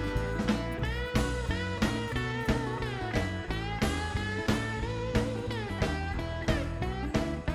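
Background music: blues-rock with a steady beat and a bending lead guitar.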